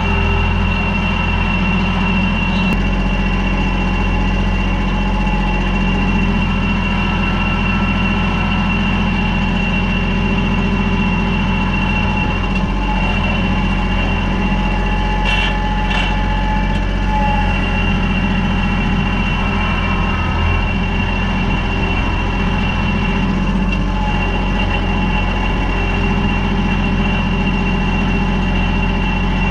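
Tractor's diesel engine running steadily at an unchanging speed, with a steady high whine over the low rumble and a couple of faint clicks about halfway through.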